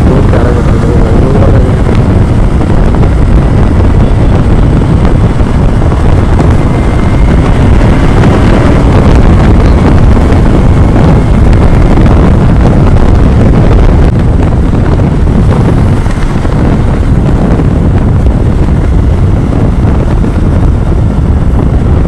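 Loud, steady wind rush over the microphone of a motorcycle at riding speed, with engine and road noise mixed in underneath.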